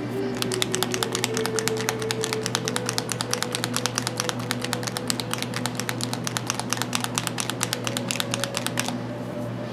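Dropper bottle of Vallejo flat red paint shaken hard before use, a fast rattle of about eight to ten clicks a second that stops near the end, over background music.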